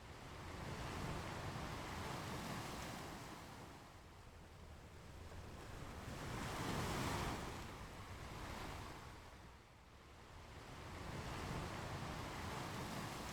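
Ocean waves breaking and washing on a beach, surging and receding in slow swells every few seconds, the biggest about seven seconds in.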